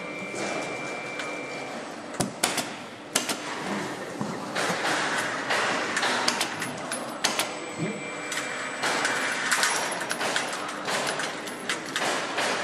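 Factory assembly-line noise: a busy mechanical din with many sharp clicks and knocks of tools and metal parts, and a thin steady whine at the start and again partway through.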